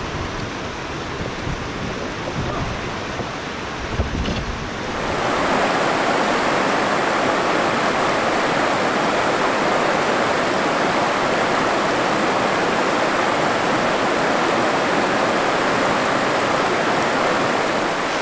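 Rushing river water with wind rumbling on the microphone for about the first five seconds. Then a sudden switch to a louder, steady rush of shallow rapids pouring over a low rock ledge.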